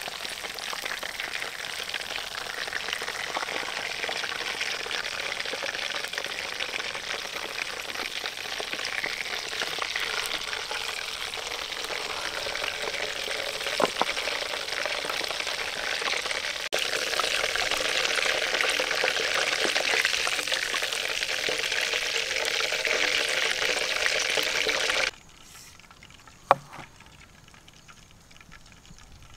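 Hot oil sizzling and crackling around a whole fish and banana flowers deep-frying in a wok, with a spatula turning them now and then. The frying gets louder past the middle, then cuts off abruptly near the end, leaving a quieter stretch with a single sharp knock.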